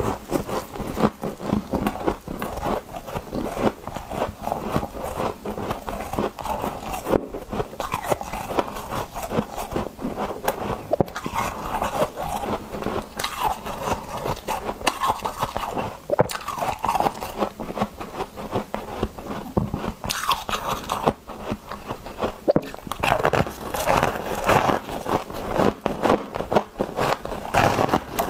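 Close-miked crunching of hard ice chunks being bitten and chewed, a dense run of crisp crunches.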